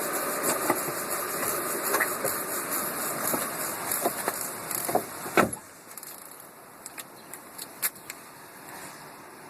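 VW Golf Mk4 drivetrain running in fifth gear with the front wheels off the ground, making an irregular clattering racket of knocks that the owner suspects is a bad front wheel bearing. About five seconds in a sharp clunk comes and the running sound stops, leaving only faint scattered clicks.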